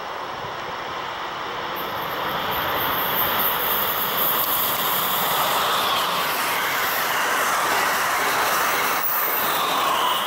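Amtrak train of Amfleet coaches approaching and passing close at speed. The rushing wheel-and-air noise builds over the first three or four seconds and stays loud as the cars go by, then breaks off briefly about nine seconds in.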